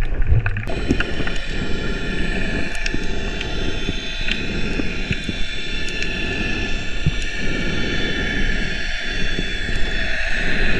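Underwater ambience picked up by a camera in a waterproof housing: a steady rumble and hiss with scattered faint clicks. The hiss grows brighter about a second in.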